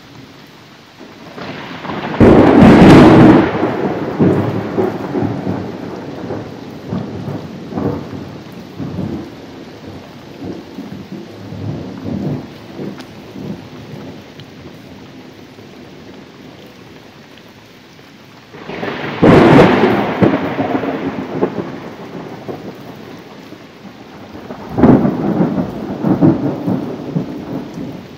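Thunderstorm: steady rain with three loud thunderclaps, about two seconds in, about two-thirds of the way through and near the end. Each one cracks sharply and then rumbles away over several seconds.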